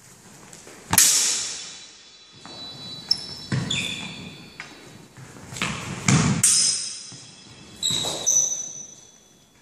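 Steel longswords clashing about five times, each strike a sharp clang that rings on and fades; the loudest is about a second in. Thuds of footwork on the wooden floor come between the clashes.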